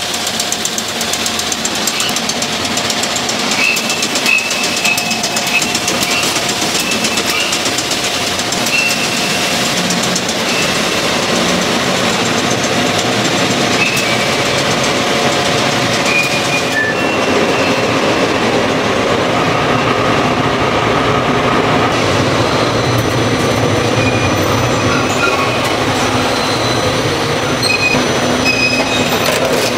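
Instant-noodle production line running: steel conveyors and machinery making a steady, dense metallic clatter with faint high whining tones over it. The sound shifts lower and fuller about halfway through.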